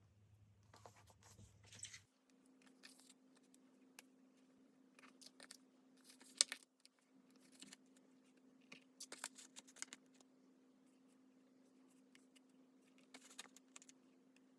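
Faint clicks and rustles of small objects being handled, in scattered bursts, with one sharp click about six and a half seconds in.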